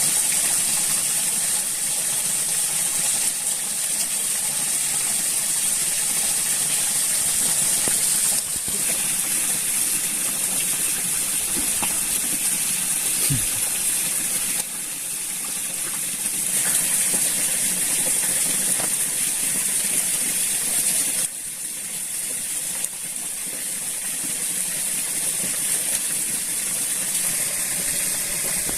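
Steady rush of flowing water with a bright high hiss; the level shifts suddenly several times.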